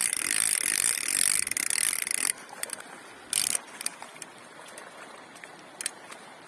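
Spinning reel cranked steadily to reel in a hooked burbot, a loud whirring that stops abruptly a little over two seconds in. A few light clicks and one short burst of noise follow.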